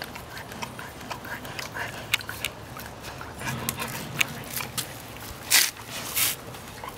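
Husky licking and mouthing a plastic Orapup tongue-cleaning brush: a run of wet licks and sharp clicks, the loudest few near the end.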